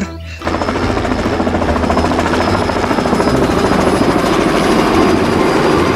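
Robinson R66 helicopter in flight: the steady, fast beat of its rotor blades over engine noise, starting about half a second in.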